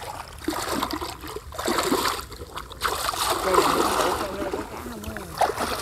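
Uneven splashing and sloshing of shallow muddy field water as hands grope into a burrow in a flooded rice paddy.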